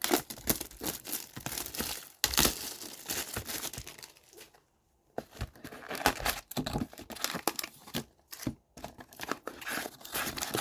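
Plastic wrapping on a hockey card box or pack being torn open and crinkled, in irregular rustling bursts with a brief pause about halfway through.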